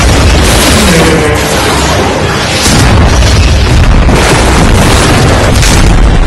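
Heavy, continuous film-mix explosions and deep booms with music underneath. It eases slightly about two seconds in, then surges loud again.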